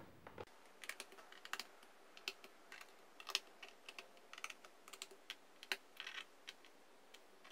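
Faint, irregular light clicks and taps, some in quick little clusters, of a small screwdriver working the screws of a laptop's plastic bottom cover as each is checked for tightness.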